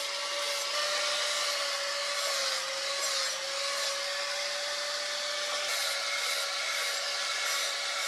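Angle grinder running steadily with a constant whine as its disc grinds a steel knife blade, with a rasping hiss of metal being ground.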